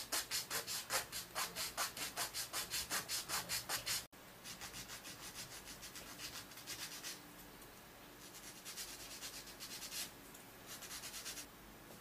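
Small wooden block sanded by hand on a sanding stick: quick back-and-forth strokes of rasping hiss, about five a second. The strokes are strongest for the first four seconds, then come lighter in several shorter runs.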